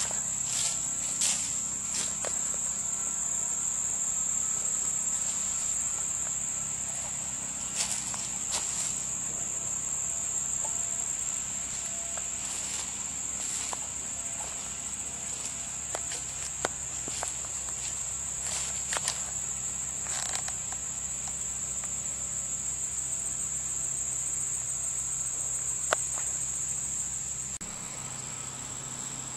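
Insects chirring in a steady, high-pitched, unbroken drone, over a faint low hum. Scattered short clicks and rustles come from footsteps and handling.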